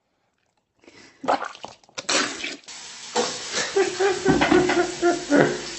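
Running water, starting about two seconds in, with several sharp knocks and clatters.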